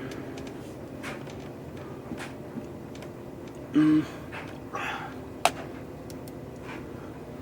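Steady low room hum, with a short vocal murmur from a man about four seconds in and a single sharp click soon after.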